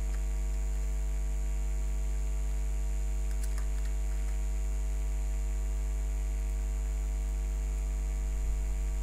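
Steady electrical mains hum with a ladder of overtones and a faint high whine above it. A few faint clicks come about three and a half seconds in.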